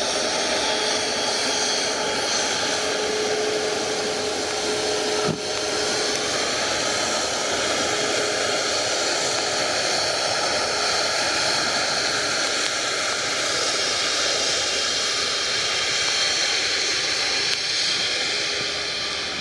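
Jet airliner engines running with a steady roar, with a faint steady tone under it for the first few seconds and a single short click about five seconds in.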